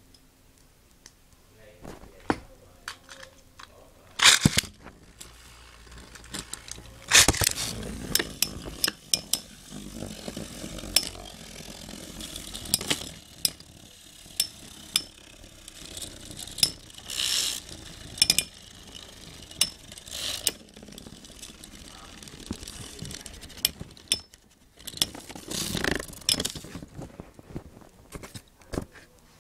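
Two Beyblade Metal Fight tops, Thermal Pisces and Storm Aquario, spinning and clashing: an irregular run of sharp metal clicks and clinks as they collide, with several louder hits.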